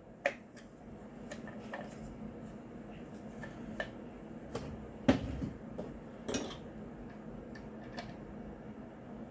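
Scattered clinks and knocks of metal sprinkler parts and small tools being handled during reassembly, the loudest about five seconds in.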